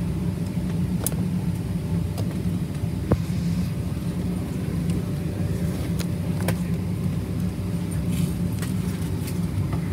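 Steady low cabin drone of a Boeing 737-700 parked at the gate during boarding, the airliner's air-conditioning and ventilation running, with a few faint clicks.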